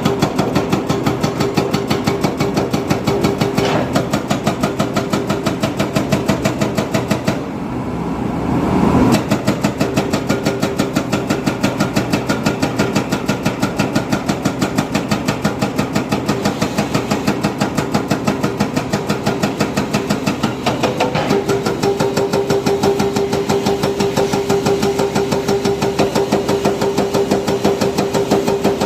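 Heavy diesel construction-machine engine running with a fast, even chugging beat and a steady whine over it. The sound briefly dips and swells about eight seconds in.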